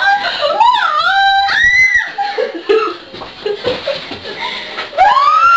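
Women shrieking and laughing, with high squeals that glide up and down; a long rising-and-falling squeal near the end.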